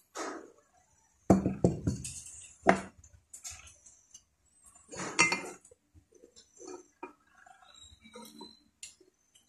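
An electric fan's metal bushing holder and star lock washer clinking as they are handled and set in place, a few separate light knocks with the strongest about a second and a half in and about five seconds in.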